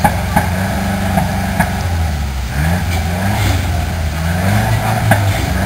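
Lotus Europa's four-cylinder engine idling on the start line, blipped a few times around the middle with short rising revs.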